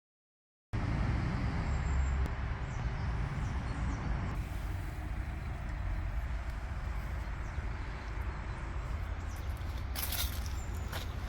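Steady low rumble of vehicle noise, coming in abruptly about a second in, with a couple of short clicks near the end.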